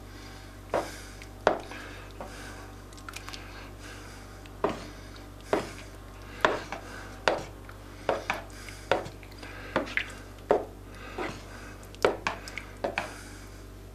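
A spoon stirring thick soup in a large cooking pot, knocking and scraping against the pot's sides and bottom in irregular clacks, often one or two a second and sometimes in quick runs.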